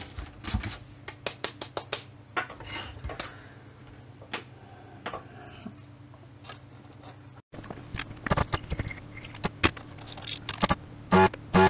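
Scattered clicks, taps and light scrapes as the plastic-cased circuit-board fuse box is handled and set down on the workbench, over a steady low hum.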